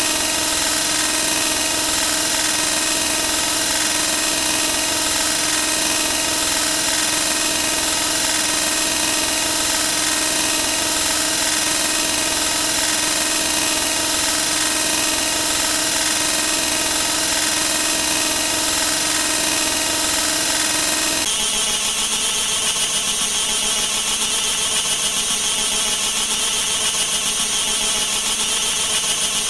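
Electronic sound effects repeated so fast that they merge into a continuous, loud, droning din of overlapping tones. About 21 seconds in it switches abruptly to a different, more alarm-like mix of beeping tones.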